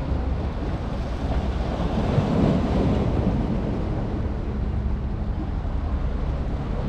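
Steady wind rumbling on the microphone over the wash of open water, with a faint low hum joining about halfway through.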